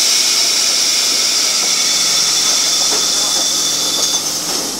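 Loud hiss of compressed air from a Karosa B941E articulated city bus's air system at a stop. It starts suddenly and dies away after about four and a half seconds.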